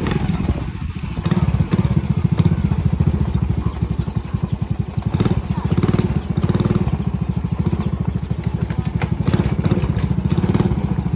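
Honda motorcycle engine running steadily while the machine rides along with its sidecar, with a few knocks and rattles from the ride.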